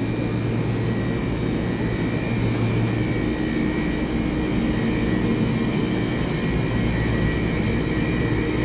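Taiwan Railway EMU3000 electric multiple unit pulling slowly out of the platform: a steady electric hum with thin high whining tones from its running equipment.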